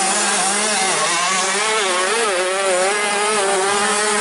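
Motocross bike engines running on the track, their pitch wavering up and down as the throttles are worked, over a steadier engine tone.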